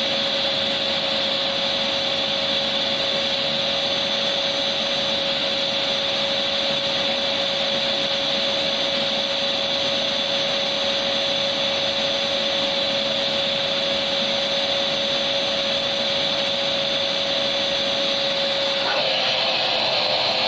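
Vacuum cleaner motor running steadily, a whooshing hiss with a steady whine. Near the end the whine drops slightly in pitch and the hiss changes colour.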